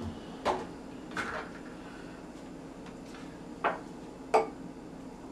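Light knocks and clicks of a blender jar and its lid being handled, four in all, spread over a few seconds: the lid comes off and the jar is lifted from the motor base with the blender switched off.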